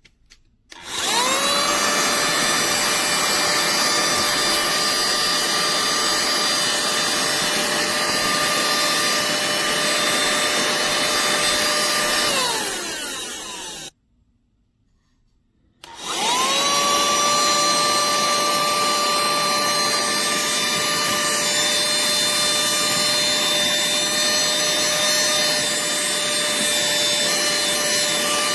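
Cordless handheld mini car vacuum's motor spinning up to a steady whirring whine. It runs for about eleven seconds, then winds down with a falling pitch. After a brief gap it starts up again and runs steadily.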